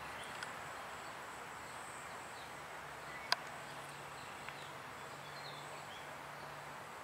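Quiet outdoor ambience: a steady hiss with a faint high insect-like drone and a few faint bird chirps. A single sharp click sounds about three seconds in.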